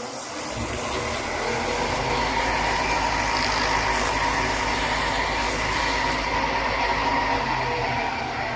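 OneWay 2436 wood lathe running steadily with an oak pepper-grinder blank spinning, a polishing pad held against the turning wood to bring up the shine. A constant hiss over a low motor hum and a faint steady whine, building up in the first half second.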